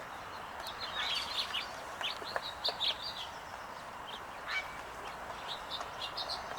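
Small birds giving short, high chirps and calls, scattered irregularly and several in quick runs, over faint outdoor background noise.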